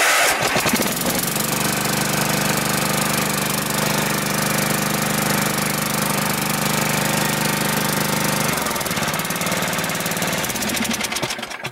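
Old riding lawn mower's engine running just after a cold start, the choke pushed part way in. It runs steadily, its note changes about eight and a half seconds in, and it stops abruptly at the very end.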